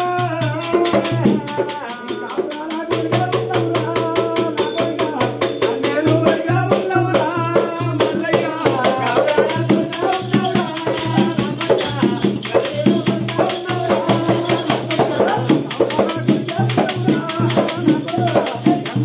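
Oggu Katha folk music: a large double-headed barrel drum (dhol) beaten in a fast, steady rhythm, with jingling metal percussion and voices singing along.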